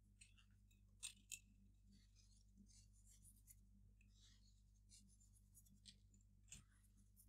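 Near silence with a few faint clicks and a faint scratchy rustle: a hand handling a small glass dish and taking a pinch of salt to sprinkle into a bowl of batter.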